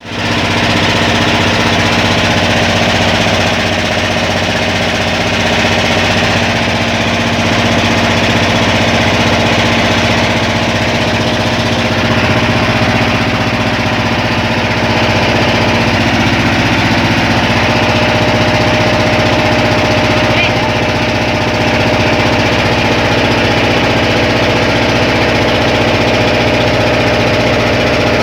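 Boat engine running steadily at a constant speed, loud and unchanging, heard from on board.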